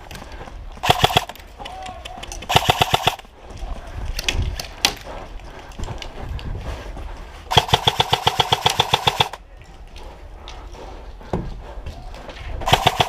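Airsoft gun firing four full-auto bursts of fast, evenly spaced shots. The third burst, about halfway through, is the longest at almost two seconds; the others are short.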